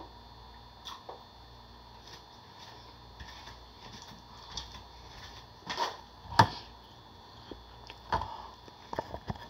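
Scattered light clicks and knocks of a person moving about close to the microphone. A sharp knock about six seconds in is the loudest. Under them runs a faint steady electrical hum.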